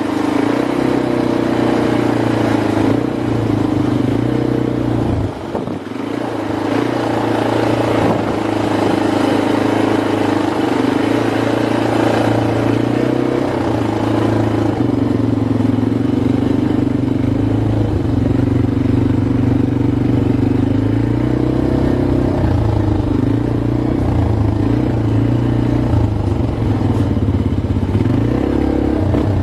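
ATV engine running steadily while being ridden, its pitch shifting slightly up and down with the throttle.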